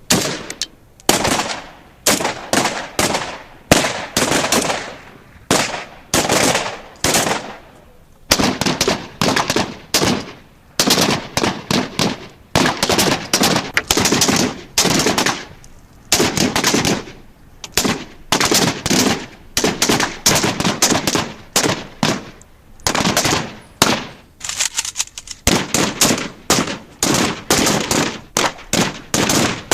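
Automatic gunfire: repeated bursts of rapid shots, each burst a second or so long, separated by short pauses, each shot trailing off in a short echo.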